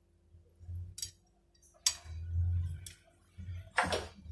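Kitchenware being handled: a few light clicks and clinks about a second apart, with low bumping handling noise between them.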